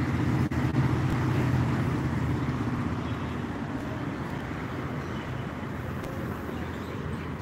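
A motor vehicle's engine running with a steady low hum that slowly fades.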